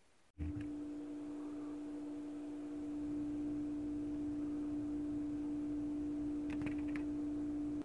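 A single steady humming tone with faint overtones over a low hum. It starts suddenly about half a second in and cuts off at the end, with a few faint clicks shortly before.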